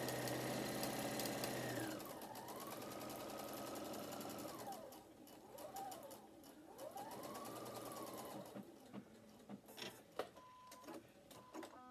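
Sewing machine stitching a quarter-inch seam. It runs fast and steady for about two seconds, then slows, its speed rising and falling in short runs as the seam nears its end. It stops about eight seconds in, followed by a few light clicks.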